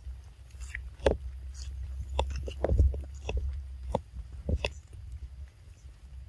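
Outdoor ambience: a low, steady rumble with a run of short, irregular taps and rustles, busiest about two to three seconds in.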